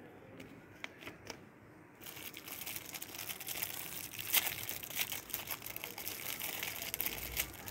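Clear plastic wrapper crinkling as it is pulled open off a contact lens case: a dense run of crackles that starts about two seconds in. A few light clicks come before it.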